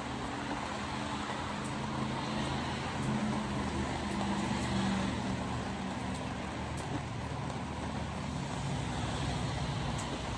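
A car driving on wet roads in hard rain: a steady low engine hum under a constant wash of tyre and rain noise, with a few faint ticks.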